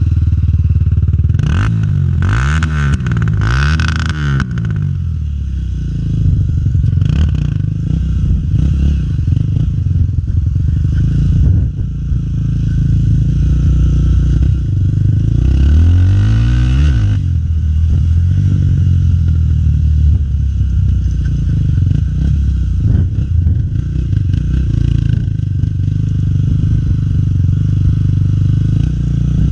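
Honda XR250 Tornado trail bike's single-cylinder four-stroke engine running under way. The revs climb and drop several times about two to four seconds in, and once more about sixteen seconds in.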